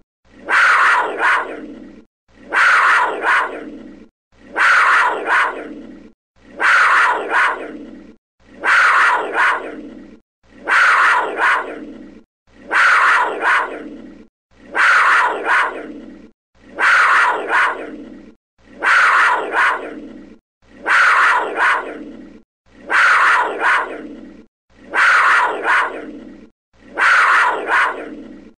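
A panther's call, one short recording looped about every two seconds. Each call starts sharply, peaks twice, then fades into a brief gap before the next.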